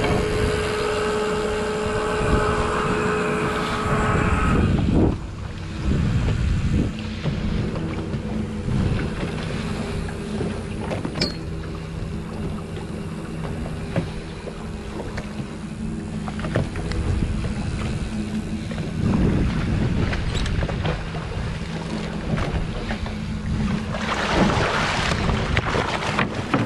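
Motorboat engine running steadily with wind on the microphone and water rushing along the hull; about four to five seconds in, the engine note shifts lower.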